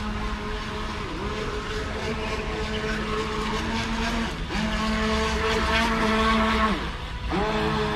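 Radio-controlled model boat's motor whining at a steady pitch in repeated throttle bursts of two to three seconds, each bursting on with a quick rise in pitch.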